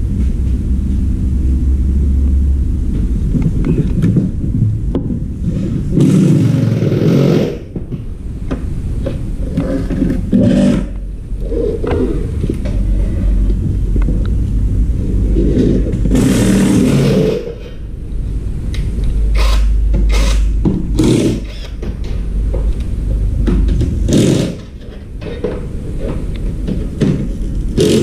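A steady low rumble under repeated scrapes, knocks and clatter as plastic appliance parts and wiring are handled and moved across a concrete floor, with louder scraping bursts now and then.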